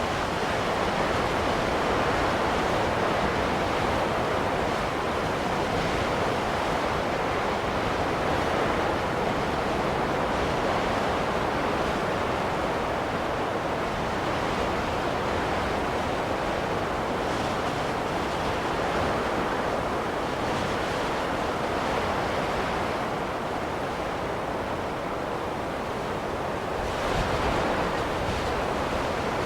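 Steady rushing wind of a snowstorm, swelling slightly near the end.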